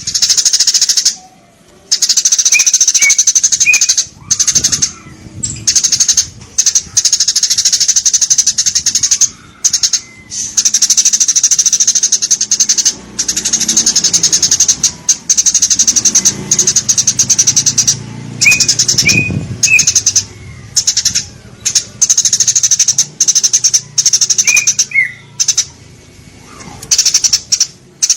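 Eurasian tree sparrows chirping: long runs of rapid, high chirps broken by short pauses every few seconds, with a few lower single chirps between them.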